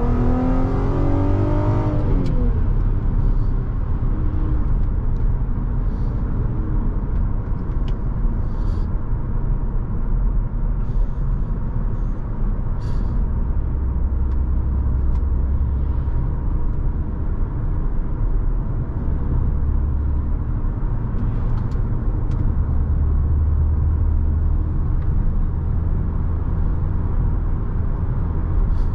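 2006 Volkswagen Passat 3.2 VR6 with its catalytic converter deleted, driving along. The engine note rises and drops about two seconds in, then settles into a steady low drone over road rumble.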